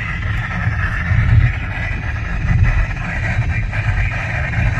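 Weather radio receiver hissing with heavy static from very poor reception, with faint crackles, over a steady low rumble of a car driving.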